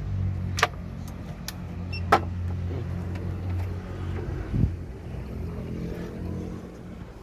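Volkswagen Caddy's engine idling steadily, with two sharp clicks, about half a second and two seconds in, and a dull knock about four and a half seconds in.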